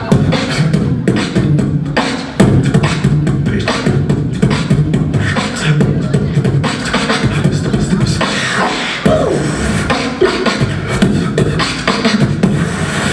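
Solo beatboxing into a handheld microphone: fast vocal drum patterns of kick, snare and hi-hat sounds, with a stretch of gliding pitched vocal sounds about two-thirds of the way through.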